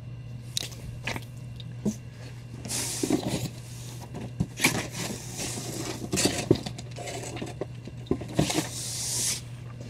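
Comic books and paper being handled: scattered light knocks and clicks, with longer rustling slides about three seconds in and near the end, over a steady low hum.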